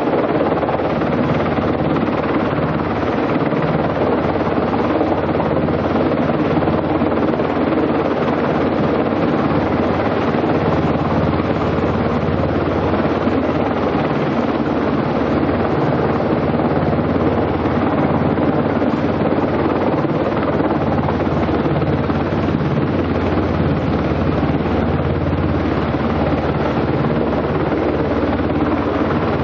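Helicopter hovering overhead, its rotor and engine making a steady, unbroken drone with a low hum.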